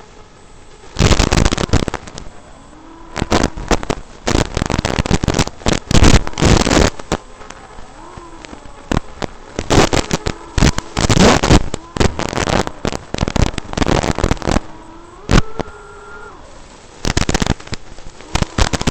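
Brushless motors of a Tinyhawk Freestyle micro FPV drone whining, their pitch gliding up and down with the throttle. The whine is broken again and again by loud bursts of harsh crackling noise.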